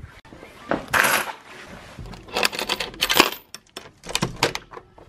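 Light clinks and clatters of small hard objects being handled: a short rustle about a second in, then a quick run of sharp clicks near the middle and a few scattered ones after.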